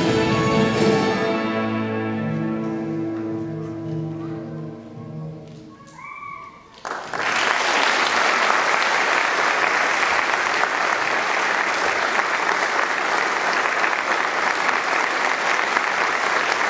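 Music with long held notes fades out over the first six seconds. Then an audience claps steadily.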